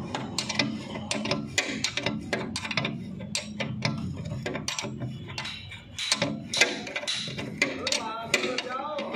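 Steel ring spanner clicking and clinking on a nut and bolt as it is worked round, with sharp irregular clicks several times a second.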